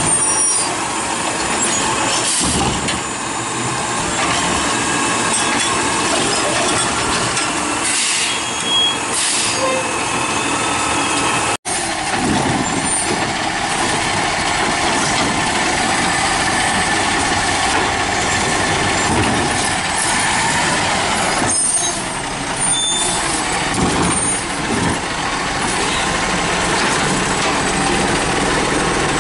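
Automated side-loader garbage trucks running up close, the diesel engine and hydraulics going steadily, with a few short hisses. There is an abrupt cut about a third of the way through. Near the end the truck's hydraulic arm lifts a cart.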